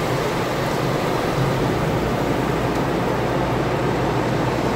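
Automatic car wash spray pouring and drumming over the car, a steady rushing wash of water heard from inside the closed cabin.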